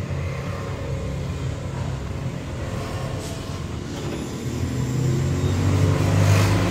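A motor vehicle's engine running close by, a steady low hum that grows louder from about four and a half seconds in.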